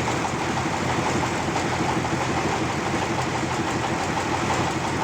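Sawmill's engine running steadily at an even speed, with a rapid, regular pulsing.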